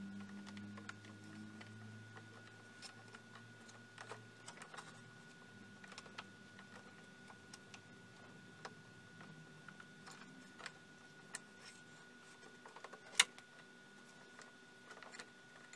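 Faint scattered clicks and ticks of fingers handling wires and a fuse holder inside a metal laser chassis, with one sharp click about 13 seconds in, over a faint steady high tone.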